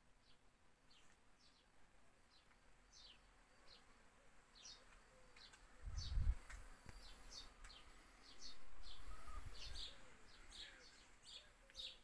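Small birds chirping over and over, short high notes that drop in pitch, a few to each second. A low rumble comes about six seconds in and again for a second or two just after the middle.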